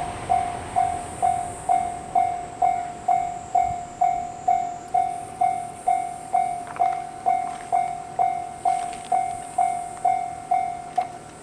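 Japanese railway level-crossing warning bell ringing, an electronic clanging tone struck evenly about twice a second.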